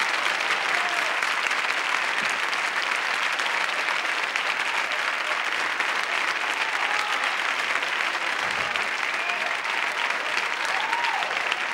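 Audience applauding steadily after the music has ended, with a few faint voices calling out in the crowd.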